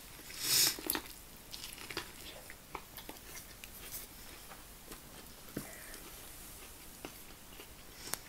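Close-miked eating: a bite into corn on the cob, loudest about half a second in, then chewing with scattered small clicks and smacks.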